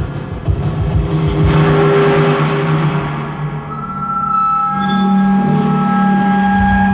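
Drum feedback: miked drums held in sustained feedback, giving a loud low drone with a rushing, noisy texture that swells in the first few seconds. From about three seconds in, several steady higher ringing tones layer on top, and near the five-second mark the low drone steps slightly higher and grows louder.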